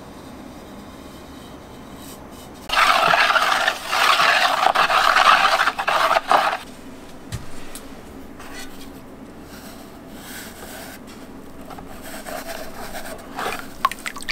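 A loud, rough rubbing scrape in a few long strokes lasting about four seconds. It is followed by quieter, scattered wet sounds as a glazed ceramic plate is dipped and moved through a basin of liquid glaze.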